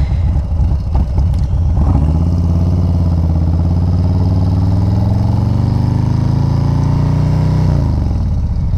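Motorcycle engine idling, then pulling away and accelerating, its note rising steadily for several seconds before the throttle is eased off near the end.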